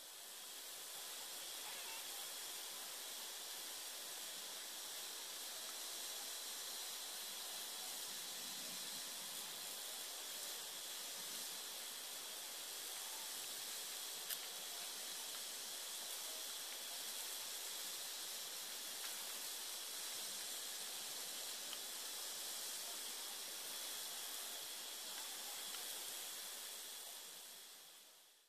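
Steady, even hiss of recording noise, with a single click about halfway through.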